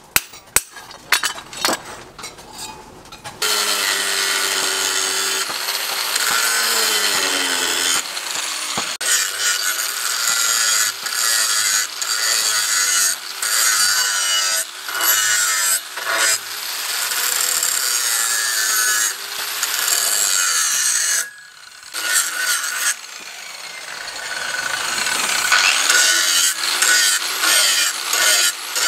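A few hammer taps on steel, then an electric angle grinder with a sanding disc grinding a leaf-spring steel knife blade, its motor pitch sagging and recovering as the disc is pressed on. The grinder drops off briefly about 21 seconds in, then runs up and grinds again.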